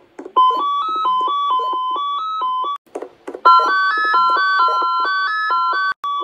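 Synthesized electronic jingle: a quick stepping melody of held keyboard-like notes over a clicky lower beat, played as two phrases with a short break between them, the second phrase higher and busier.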